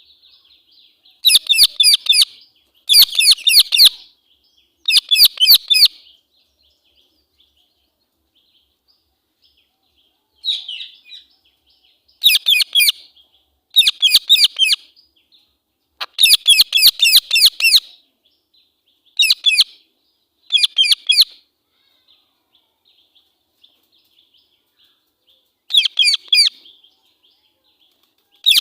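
Female Indian ringneck parakeet calling in the harsh, angry voice: loud bouts of rapid, high-pitched shrieking notes, each bout lasting a second or two, repeated about ten times with short pauses between.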